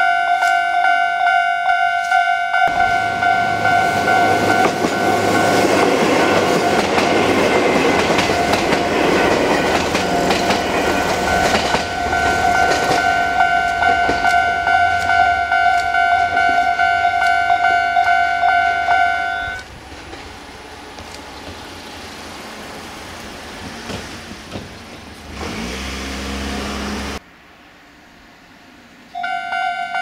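Japanese level-crossing warning bell ringing steadily while a train runs past the crossing with rumbling and clattering wheels from a few seconds in. The bell and the train noise stop about two-thirds of the way through, and the bell starts ringing again near the end.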